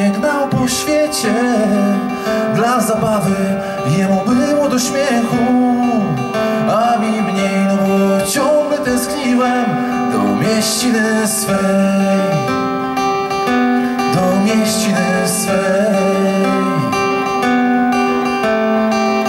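Acoustic guitar strummed, with a harmonica played from a neck holder: an instrumental break in a folk song, in sustained chords with some bent notes.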